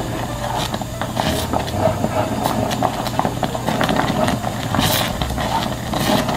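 Flour-and-water paste bubbling and popping in a pot as it boils, a dense run of small pops with a few louder ones; the paste for kimchi seasoning is cooking through. A low steady hum sits underneath.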